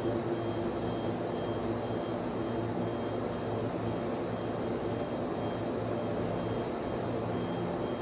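Server room equipment running: the steady hum and whir of cooling fans in servers and network switches, with several constant tones in the hum. A faint high-pitched tone pulses on and off at a regular pace above it.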